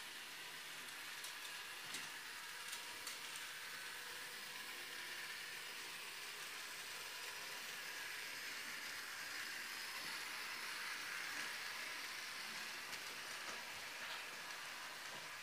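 H0-scale model train running on the layout's track: a faint, steady rattle with scattered small clicks, swelling a little past the middle.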